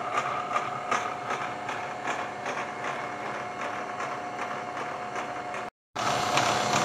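Milling machine running an involute gear cutter through a small spline shaft. It makes a steady mechanical hum with a held tone and regular light ticks, about two to three a second. The sound drops out completely for a moment near the end.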